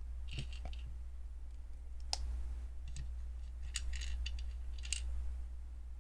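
Small hard plastic LEGO pieces clicking and clattering as they are handled and fitted together, in scattered bursts of clicks, over a steady low hum.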